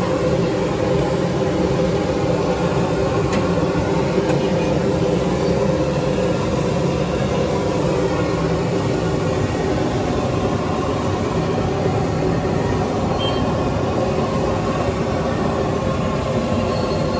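Steady rushing noise of a gas burner running under a wide pan of whole fish deep-frying in oil, with the oil sizzling.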